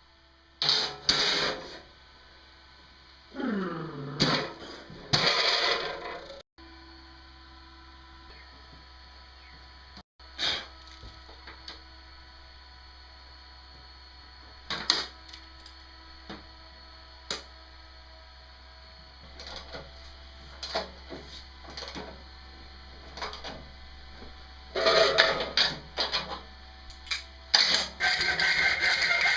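Scattered knocks, clicks and scrapes of hands and tools at work, with a short squeal falling in pitch about four seconds in and a cluster of louder clatter near the end. An electric drill starts running just before the end.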